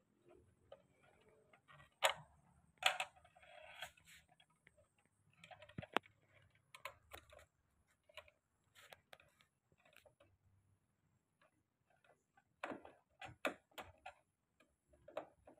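Scattered light clicks and knocks of a screwdriver and hands working on a plastic electrical control box while its mounting screws are undone, with a cluster early on, a single sharp tick about six seconds in, and another cluster near the end.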